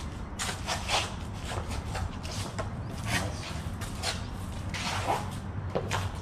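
Irregular scuffs and light knocks from two people moving and sparring with blades, a dozen or so short bursts, over a low steady rumble.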